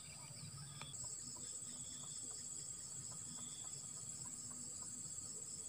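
Steady high-pitched trilling of insects, several at different pitches at once, the highest growing louder about a second in.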